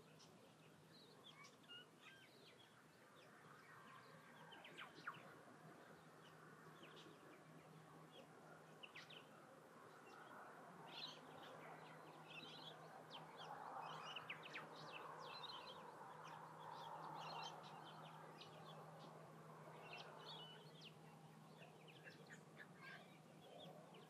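Faint birds chirping in coastal bushland, many short high chirps scattered throughout. Beneath them a soft background rush swells a little in the middle and fades again, over a faint steady low hum.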